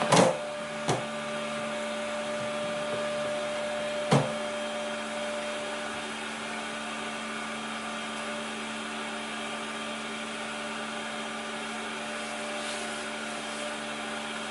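Pet drying box's fan motor running with a steady whirring hum. A few short knocks come near the start and about four seconds in.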